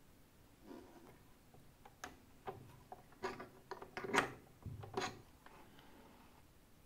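Small metallic clicks and knocks, with some rubbing, from an open-end wrench loosening the metal flex-shaft coupler of an RC boat and from hands handling the parts. They come in a scattered cluster from about two to five seconds in, the loudest about four seconds in.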